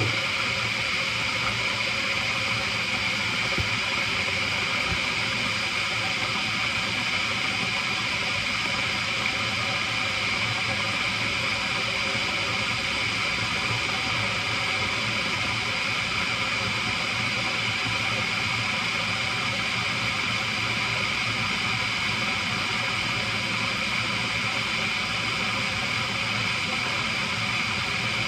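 Electric kettle heating water, a steady, even hiss.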